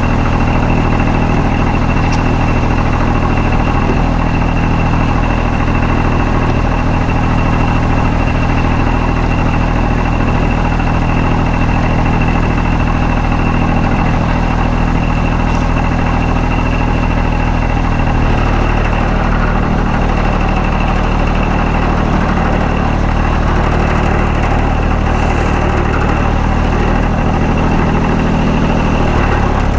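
An engine running steadily at an even speed, its low hum shifting slightly about two-thirds of the way through.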